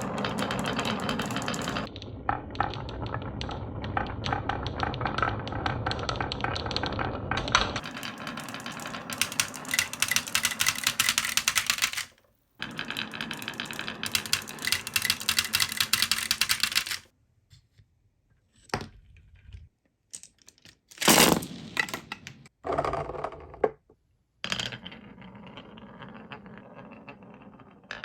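Marbles rolling and clacking along a HABA wooden marble run: a dense, fast rattle of many small clicks for the first half, cut off abruptly twice. Then a handful of separate rolls and knocks with silent gaps between them, and a fainter steady rattle near the end.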